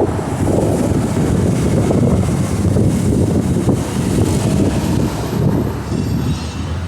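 Loud, steady low rumbling noise with no speech, like wind buffeting a microphone or the road noise of a moving car.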